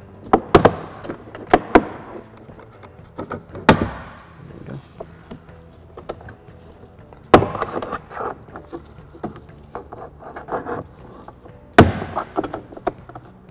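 Plastic retaining clips of a 2010 Volkswagen GTI door trim piece popping loose one after another as it is pried off with a plastic trim tool, each a sharp snap, with plastic scraping and creaking between the snaps.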